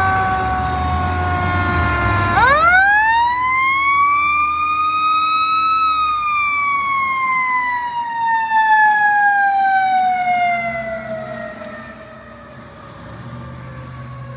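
Fire engine siren wailing. A falling tone sweeps quickly up to a high pitch about two seconds in, then glides slowly down and fades away near the end. Low truck engine rumble is heard underneath.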